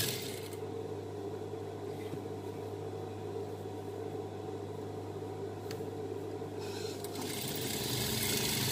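Industrial sewing machine stitching a dress hem: the stitching stops right at the start, the motor keeps humming steadily with a faint click or two, and the stitching starts up again about seven seconds in.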